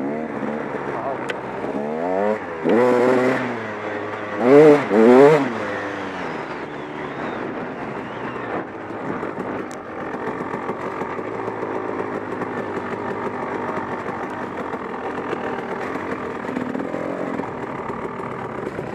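Two-stroke dirt bike engine of a KTM 300 XC-W on the trail, revved up sharply several times a few seconds in, then running steadily at part throttle.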